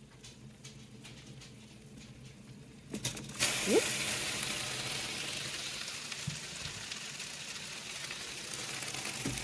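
Water at a rolling boil in a stainless pot used as a water-bath canner: a steady hissing bubble that comes in suddenly about three seconds in, with a short rising squeak as it starts. A few light clicks come before it.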